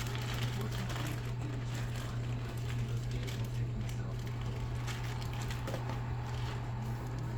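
A steady low hum with scattered light clicks and clatter of things being handled in a kitchen.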